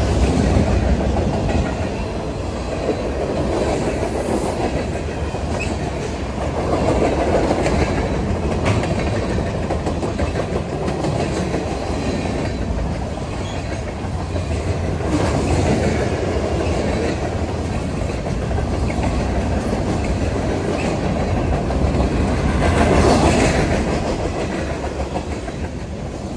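Freight cars of a BNSF train rolling past at speed, steel wheels running on the rails. The noise swells louder about every eight seconds.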